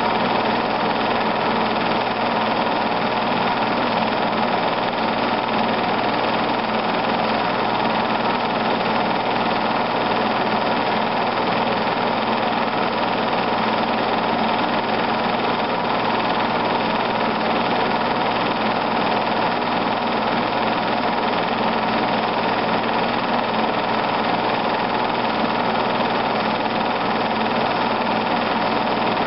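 Film projector running steadily, a constant motor hum and whir with no change in speed.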